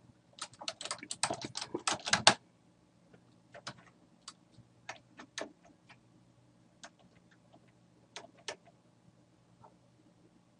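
Typing on a computer keyboard: a quick run of keystrokes for about two seconds near the start, then scattered single clicks.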